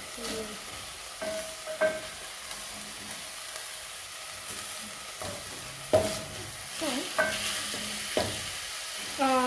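Minced meat sizzling in a pot while a spoon stirs it, knocking and scraping against the pot a handful of times.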